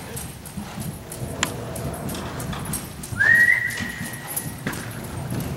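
A horse trotting on soft indoor arena footing, its hoofbeats coming as dull, even knocks. About three seconds in, a steady high tone sweeps up and then holds for about a second and a half; it is the loudest sound in the stretch.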